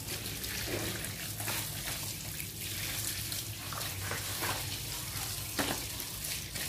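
Tap water running and splashing over oysters being rinsed by hand in a metal bowl, with a few clacks of shells knocking together.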